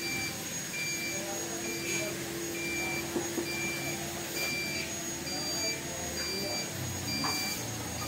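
Electronic incubator controller beeping, a short two-tone beep repeating about once a second, over the steady hum of the incubator's circulation fan.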